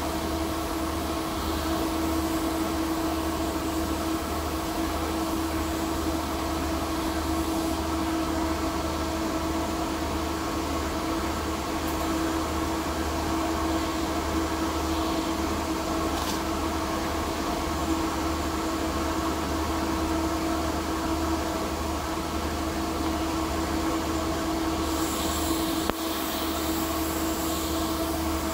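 Steady mechanical drone of an electric ventilation blower and site machinery, with a constant low hum and a steady mid-pitched tone that do not change when the welding stops. About three seconds before the end a faint high hiss joins in as the TIG arc is struck again.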